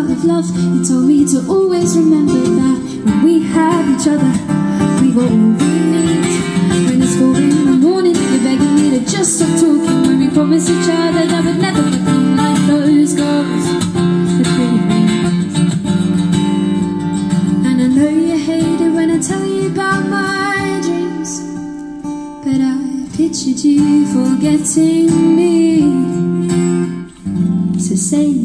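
Live acoustic song: a steel-string acoustic guitar strummed while a woman sings into a microphone through a small amplifier.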